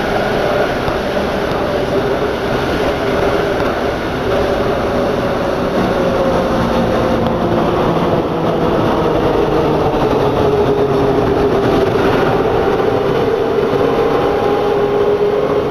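Rubber-tyred MP89CA métro train running between stations, heard from inside the car: steady rolling noise under the whine of the traction motors, whose tones drift and slowly fall in pitch.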